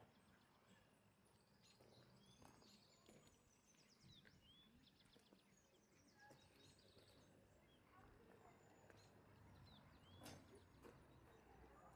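Faint outdoor ambience: small songbirds chirping and twittering on and off over a low background rumble.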